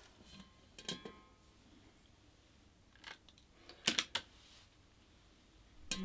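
A few faint, scattered clicks and knocks as small waxed decorative apples are set by hand into a tall glass vase, one with a brief glassy ring.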